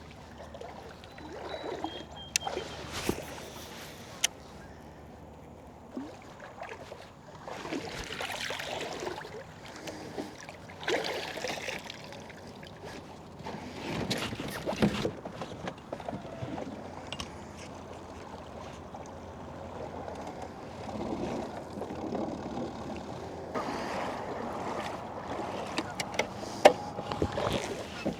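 Water and handling sounds around a fishing kayak: irregular swishes and splashes a few seconds apart, with a few light knocks and one sharp click near the end.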